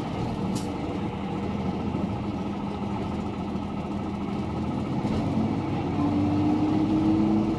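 A city bus's engine and road noise, heard on board, running steadily. From about six seconds in, an engine tone slowly rises in pitch as the bus gathers speed.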